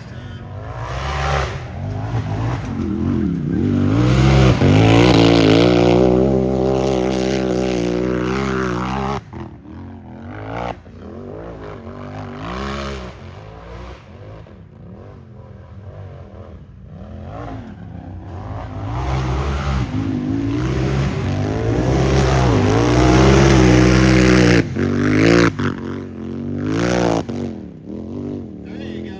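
Unlimited-class race UTV engine revving hard, its pitch rising and falling with the throttle. It is loud for a few seconds early on, cuts sharply, then builds to a second loud stretch before it fades back.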